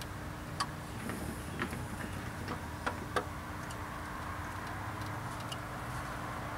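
A handful of light, sharp metal clicks and knocks as a replacement alternator is worked into its tight mounting bracket, over a steady low background rumble.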